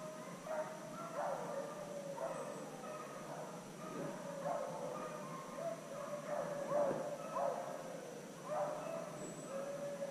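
Pack of beagles baying while running a deer: a continuous string of wavering, drawn-out calls and yelps rising and falling in pitch.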